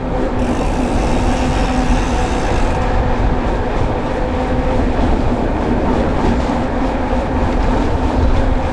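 Riding noise from a moving bicycle: wind rumbling on the camera microphone, with a steady humming drone at a constant pitch, typical of gravel tyres rolling on tarmac at an even speed.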